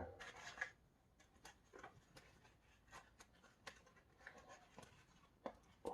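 Faint, scattered small clicks and rustles of hands handling self-adhesive pads and pressing them onto a wooden trivet.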